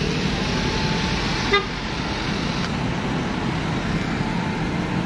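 Steady road traffic noise from passing cars, with one short car-horn toot about a second and a half in.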